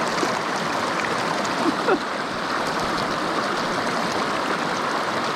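Stream water running steadily, an even rush of flowing water, with a couple of short faint sounds just before two seconds in.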